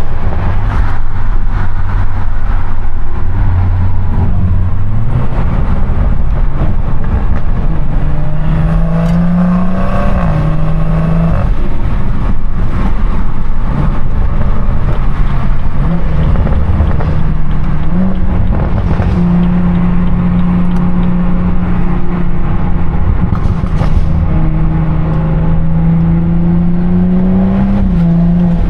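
BMW 340i's turbocharged B58 inline-six with a modified exhaust, driving and holding steady engine speeds. The pitch climbs a few times and then drops back, as in accelerating and shifting up.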